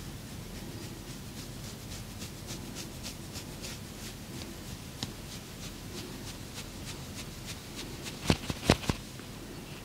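Hands working over skin in a massage, about four light strokes a second, then three sharp, loud snaps close together a little over eight seconds in.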